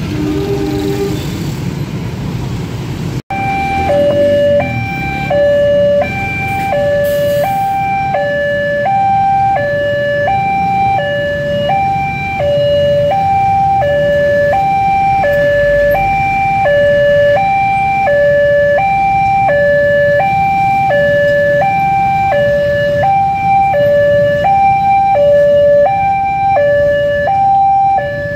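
Railway level crossing warning alarm sounding, an electronic two-tone signal alternating high and low about one and a half times a second. It starts about three seconds in, over the sound of motorbike engines.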